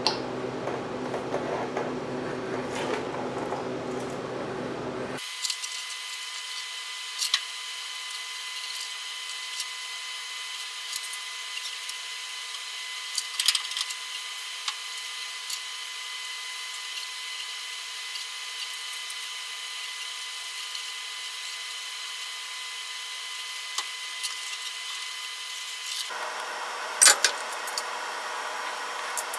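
Hand work on a disc brake hub and rotor being fitted to a front spindle: a few sharp metal clicks and taps, the loudest near the end, over a steady high electrical whine.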